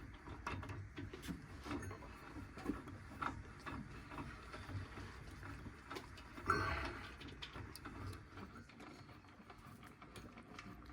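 Light, irregular mechanical clicking and rattling from a purple martin pole's cable winch as its drum is turned by hand to take up the cable's slack, with one louder knock about six and a half seconds in.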